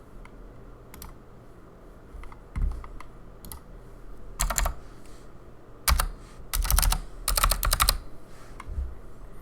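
Typing on a Keychron C2 mechanical keyboard with stock Gateron Blue clicky switches and stock keycaps. A few scattered single keystrokes, then quick runs of clicks in the second half.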